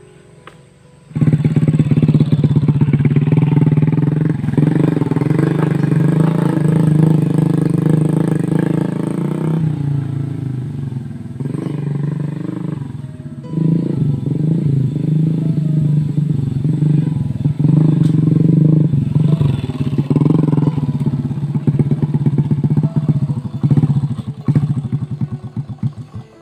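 Small motorcycle engine running hard under load, starting about a second in, easing off for a few seconds midway, then pulling again and dropping away near the end.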